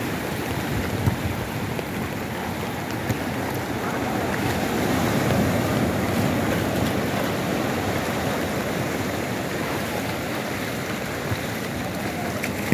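Sea surf breaking and washing up the shallow beach, a steady rush of noise that swells a little midway.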